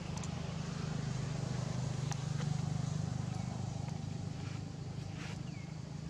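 A steady low engine hum that swells to its loudest a couple of seconds in and then eases off, with a few faint clicks and a short high squeak near the end.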